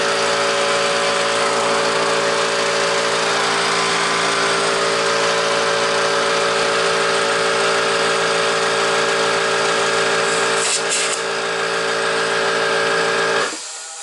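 Air compressor running steadily while a tractor tyre's inner tube is filled to seat the bead, with a short burst of hiss about eleven seconds in. It stops abruptly just before the end.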